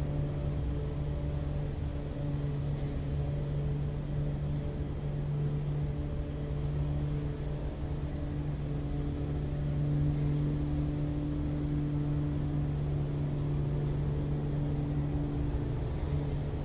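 Steady low mechanical hum holding one pitch throughout, like an idling engine or machinery running nearby, over a low rumble.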